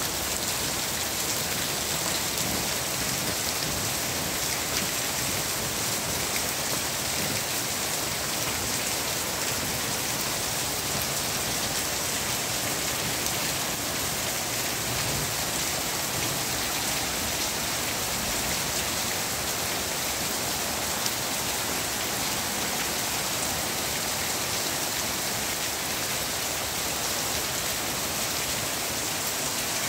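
Heavy rain falling steadily, splashing into a water-filled plastic basin and onto concrete and garden foliage.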